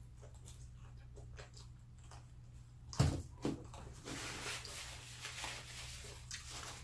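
Close-up eating sounds: faint wet mouth clicks, then two sharp knocks about halfway through, followed by a couple of seconds of crackly crunching and rustling.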